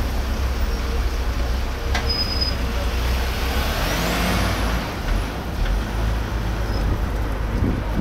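Road vehicles driving slowly past close by: a steady low engine rumble with tyre noise. A broad hissing swell comes about halfway through as one passes.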